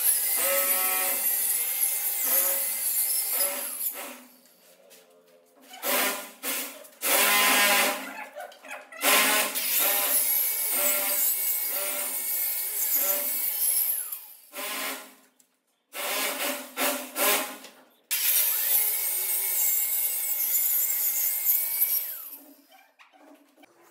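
Handheld electric power saw cutting plywood along a straightedge guide. It runs in several loud stretches of a few seconds each, with a steady motor whine and short stops between passes.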